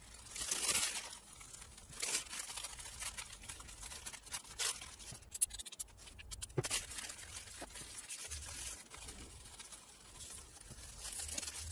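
Crumpled paper rubbing and wiping across a glass front panel, in soft strokes, with a short run of clicks a little past the middle as an aerosol can is sprayed onto the glass.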